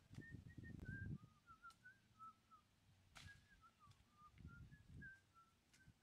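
A bird singing a faint, steady run of short whistled notes, with low rustling near the start and again about four and a half seconds in, and a few sharp clicks.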